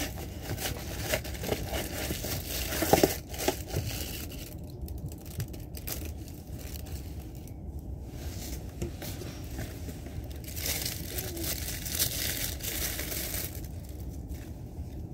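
Tissue paper and a cardboard-and-plastic package rustling and crinkling as a gift is unwrapped by hand, in irregular bursts with a louder crackle about three seconds in. A steady low rumble from the train runs underneath.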